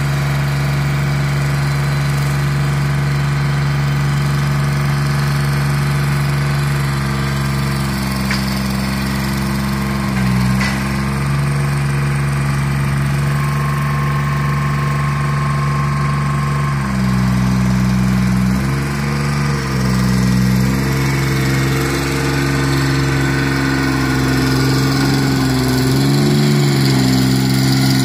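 Rail-mounted tie crane's engine running steadily, its speed dipping and picking up again several times as the boom and grapple are worked, with a few light clicks.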